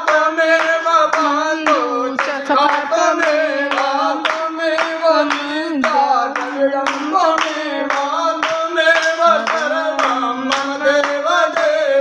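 A Hindu aarti hymn being sung, with steady hand clapping on the beat, about two claps a second.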